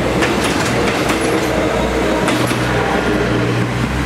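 Philippine National Railways commuter train passing close by, its wheels clicking irregularly over the rail joints above a steady rumble, with a low steady drone building in the second half.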